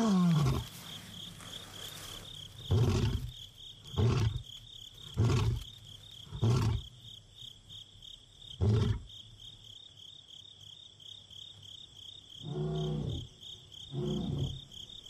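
Male lion roaring bout: a falling moan trails into a series of about five deep grunts, a little over a second apart, then two more calls near the end. This is the long-distance contact roar of a lone lion calling for a companion. A steady insect trill runs underneath.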